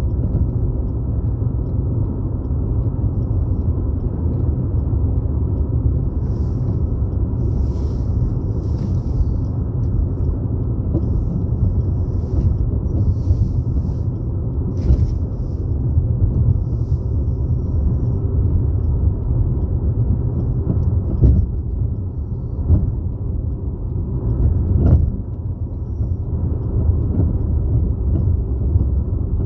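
Steady low rumble of road and engine noise inside a moving car, with a couple of short bumps about two-thirds of the way through.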